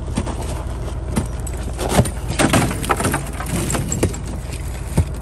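Heavy slabs of river ice being shoved into a truck bed, knocking and clinking against the ice already piled there and against the wooden side: a run of sharp knocks in the middle and a single sharp knock near the end, over a steady low rumble.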